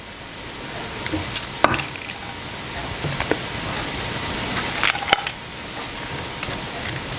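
Pan of tomato and coconut milk sauce sizzling steadily as chicken pieces are placed back into it, the sizzle slowly growing louder, with a few sharp clicks of the pieces or utensil against the pan.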